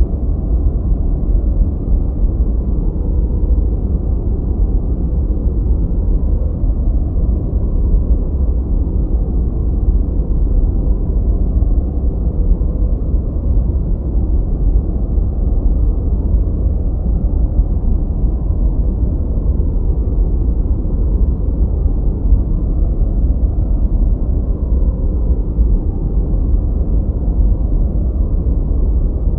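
Gentle white noise for sleep and masking: a steady, deep, muffled hiss with most of its weight low down and almost nothing in the treble, even and unchanging in level.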